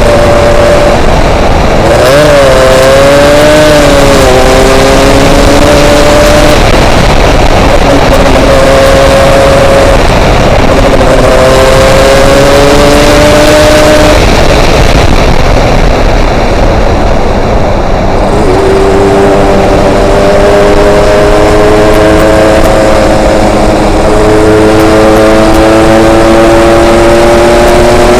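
Yamaha RX-King's two-stroke single-cylinder engine running under a rider, its pitch rising and falling with the throttle, dropping about two-thirds through and then climbing steadily toward the end, under loud wind noise on the microphone.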